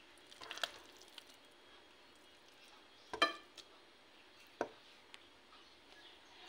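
A few light knocks and clinks of a wooden spoon against a pot and a plate while rice pudding is spooned out. The loudest knock comes about three seconds in and rings briefly; a lighter one follows about a second and a half later.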